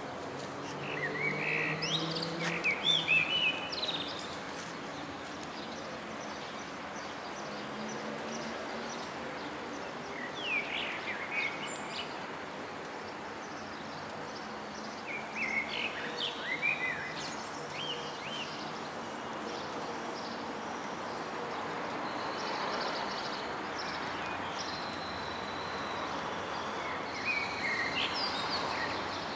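Steady background noise of a city with small birds chirping in four short bursts. A low hum sounds in the first few seconds.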